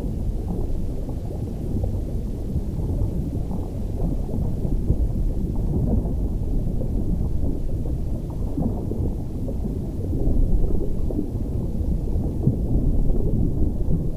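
Low, continuous rumbling water noise with no distinct tones, as heard underwater, swelling slightly about two-thirds of the way through.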